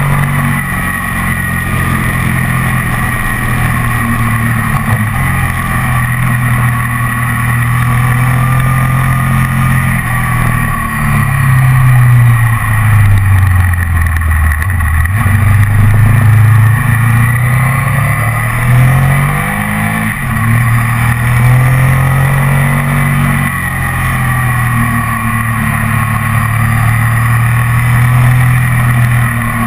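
Ducati ST4S's V-twin engine running under way, heard from a camera mounted on the bike. About ten seconds in, the revs drop for a bend and then climb back up over the next several seconds, loudest while the revs are low.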